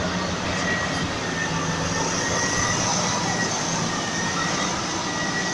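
Diesel engines of a large hydraulic mining excavator and a rigid mining haul truck running together, a steady heavy drone with a thin high whine over it.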